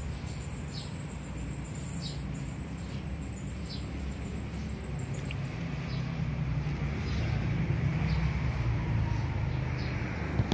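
Outdoor ambience: a steady low rumble, with a small bird's short high chirps repeating about once a second.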